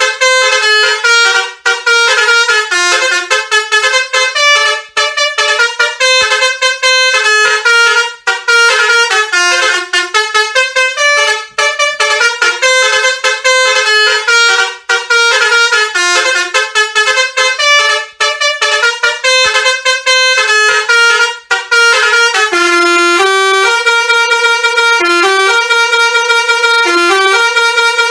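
Telolet horn, a multi-tone musical horn of the kind fitted to Indonesian buses, playing a fast tune note after note with short breaks between phrases. Near the end the notes slow into longer held tones.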